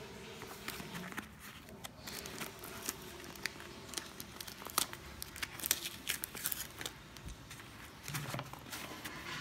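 Cardboard shipping box and its packaging being handled: irregular crinkling and rustling with scattered sharp clicks and taps, busiest in the middle.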